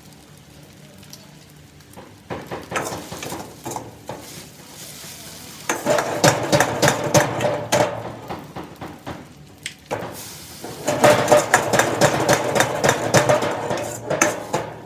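Metal spatula scraping and clanking against a wok while stir-frying flat rice noodles, with a faint sizzle. It comes in three bouts of rapid scraping separated by short pauses.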